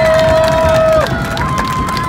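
Grandstand crowd cheering and clapping, with a long steady tone held over it that cuts off about a second in, and another, higher steady tone starting shortly after.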